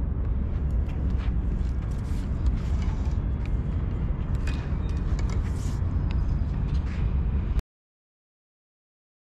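Wind buffeting an open microphone as a steady low rumble, with a few faint clicks and knocks of handling. About seven and a half seconds in the sound cuts off to dead silence.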